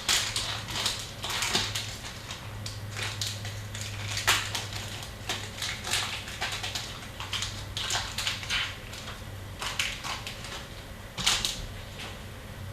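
Hockey trading card packs being torn open and their wrappers crinkled, in irregular short crackles and rips, over a steady low electrical hum.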